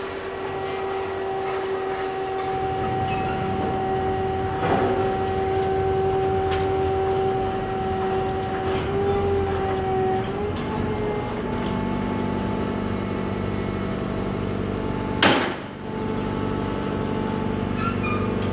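Garbage boat's engine and hydraulic crane running with a steady humming whine that wavers and drops in pitch about ten seconds in, then settles into a lower, rougher tone as the crane works. A sharp knock about 15 seconds in.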